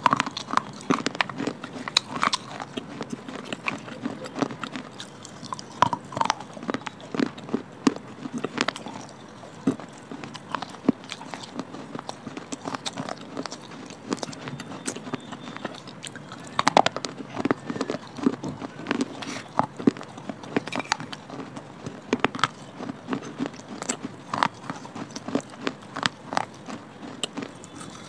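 Close-miked crunching and chewing of brittle baked clay pieces coated in a creamy paste, with sharp, irregular crackles from the mouth throughout.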